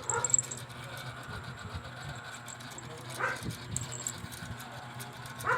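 Siamese kitten giving short meows, three in all: just after the start, a little past halfway, and at the end. A steady low hum runs underneath.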